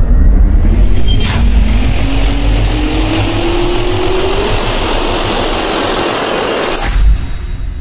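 Jet engine spool-up sound effect for a logo intro: a turbine whine climbing steadily in pitch over a heavy low rumble, with a sharp hit just over a second in and another near the end, then fading away.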